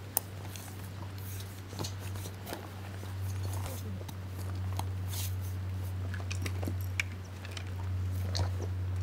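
Scattered small clicks, crackles and rustles over a steady low hum.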